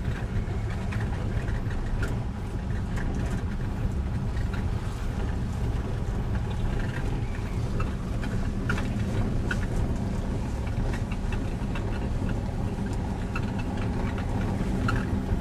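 Steady low rumble of a vehicle's engine running, heard from inside the vehicle, with scattered small clicks and rattles.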